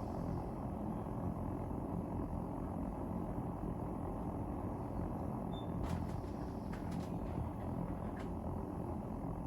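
Sui gas (natural gas) room heater burning, a steady low rumble of the flame with a few faint clicks about six to eight seconds in.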